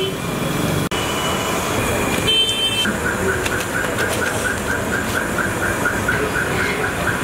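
Street traffic noise with brief vehicle horn toots about a second in and again about two and a half seconds in. From about three seconds, a rapid electronic chirping repeats about three times a second, like a car alarm or reversing signal.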